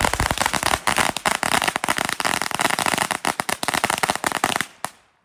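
A string of firecrackers going off: a rapid, continuous volley of sharp cracks for nearly five seconds that stops abruptly, followed by one last crack.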